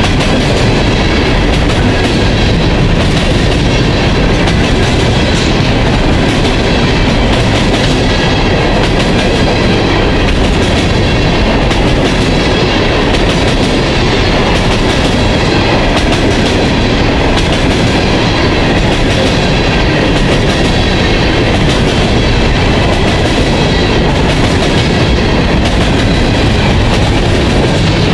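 Open-top freight cars rolling past close by: a loud, steady rumble of steel wheels on the rails, with a regular clickety-clack as the wheels cross rail joints.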